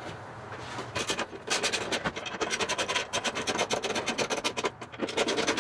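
Hand ratchet with a Torx bit clicking in quick runs, several clicks a second, as it is swung back and forth to snug down the screws of a plastic cover.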